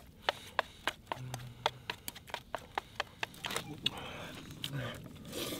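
Close-miked eating: a quick string of sharp mouth clicks and smacks, about four a second, from someone chewing Chapaguri noodles, with a brief low hum about a second in.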